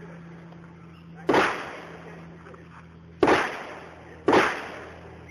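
Three pistol shots, spaced unevenly, each with a short ringing tail off the surrounding berms.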